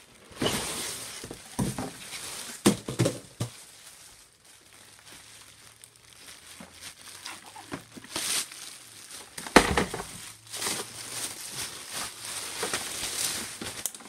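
Thin plastic packaging bags crinkling and rustling as wrapped parts are handled and pulled out of a cardboard box, with a few sharp knocks, the loudest about ten seconds in.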